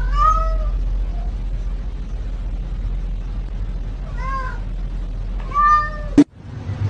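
Domestic cat giving three short, spaced meows that sound like "hello?" and "no", over a steady low hum. A sharp click comes near the end.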